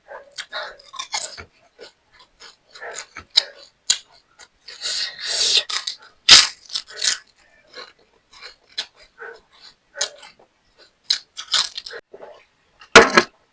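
Close-up eating sounds: crunchy bites and chewing in irregular crackly bursts, with a few sharp loud crunches.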